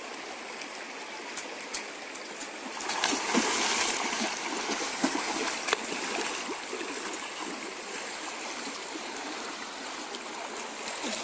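River water flowing over rocks, with splashing from a child wading through the current; the splashing is loudest for a few seconds starting about three seconds in.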